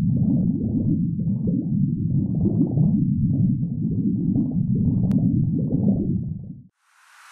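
Muffled underwater rumble with uneven swells and a single sharp click about five seconds in. It fades away just after six seconds, and a rising whoosh begins near the end.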